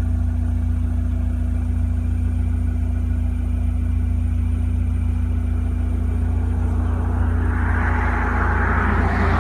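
Car driving on a road: a steady low rumble of road and engine noise, with a hiss of wind and tyres building over the last couple of seconds.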